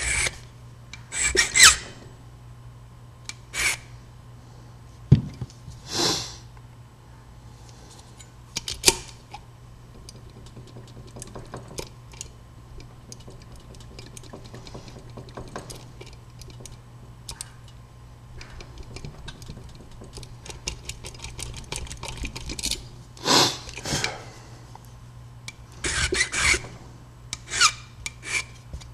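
Small Pippin file rasping on a brass key blank in several short bursts of strokes, with faint metallic ticks and scrapes between them. This is impressioning: marks left by the lock's wafers are being filed down on the key.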